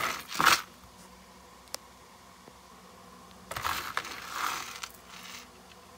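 Metal chain necklaces with glass beads clinking and rattling as they are handled. The rattle comes in two bursts, a short loud one at the start and a longer one about three and a half seconds in, with a single small tick between.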